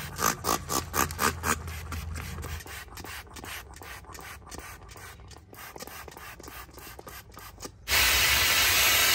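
Filter cleaner sprayed onto a dirty air filter in a run of short squirts, about three a second at first and fainter later. A little before the end a hose jet starts suddenly, rinsing the filter with a loud, steady hiss of water.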